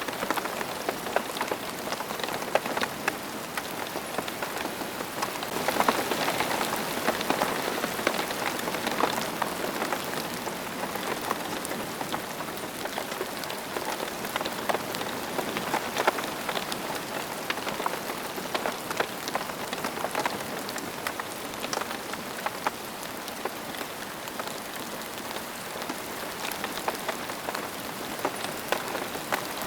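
Steady rain falling on a surface, with many separate drop hits heard through the downpour; it grows a little heavier about six seconds in, then eases back.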